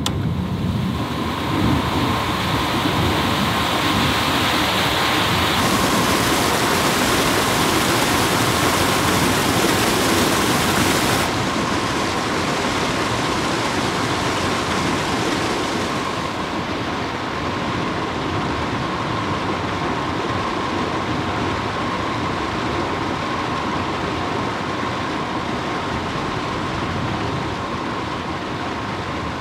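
Electric motor and gearing of a sluice-gate hoist running after being switched on at its control box, driving the toothed rack: a steady whine over a loud continuous hiss. The hiss thins abruptly twice, about eleven and sixteen seconds in.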